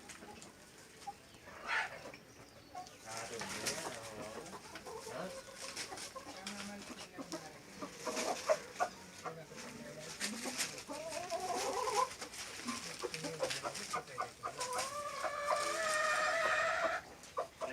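Chickens clucking and calling, with one long drawn-out call near the end.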